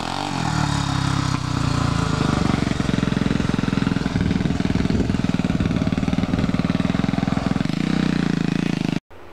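Small off-road vehicle engine running steadily close by while riding along a dirt trail, with fast, even exhaust pulses. It cuts off suddenly near the end.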